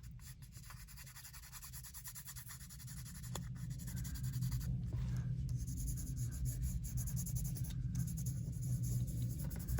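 Wax being rubbed onto paper cardstock: a dense run of quick, scratchy rubbing strokes that grows louder about three seconds in.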